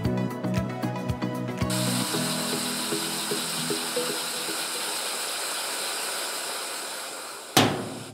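Background music with a plucked, ticking beat stops about two seconds in. Then a wooden model steam engine runs on compressed air: a steady hiss of escaping air with light clicking from the mechanism, and one sharp knock near the end.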